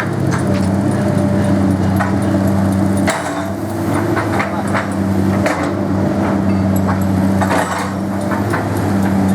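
Komatsu PC200 hydraulic excavator's diesel engine running steadily, its note dipping and recovering as the hydraulics take load, with repeated sharp knocks and clanks scattered throughout.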